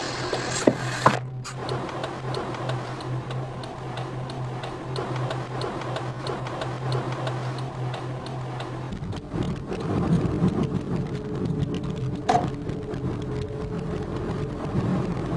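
Inside a taxi's cabin: a steady low hum with faint regular ticking, giving way about nine seconds in to louder low road rumble, with a single click near the end.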